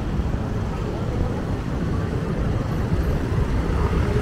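Street traffic: motorcycle and car engines running past, a steady wash of noise that sits mostly low.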